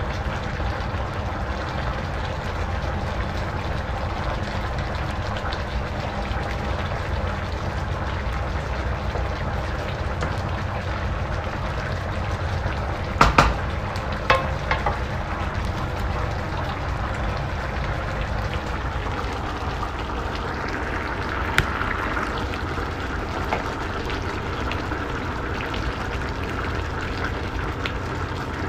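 Pan of coconut-milk vegetable stew with tilapia simmering, with a wooden spatula stirring it and knocking sharply against the pan a few times, loudest about thirteen seconds in, over a steady low rumble.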